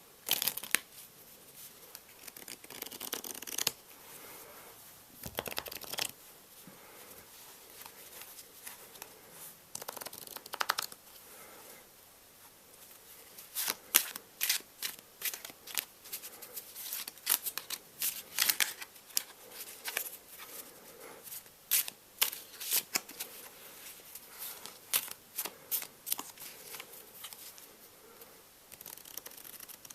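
Playing cards handled and shuffled close to the microphone: scattered rustles and snaps at first, then a long run of rapid sharp clicks and flicks through the middle and later part.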